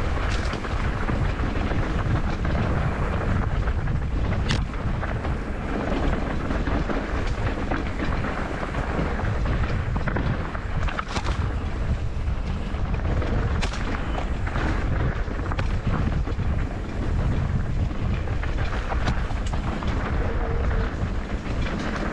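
Mountain bike riding a dirt trail: a steady rumble of wind buffeting the camera microphone and tyres on the ground, with sharp knocks and rattles from bumps every few seconds.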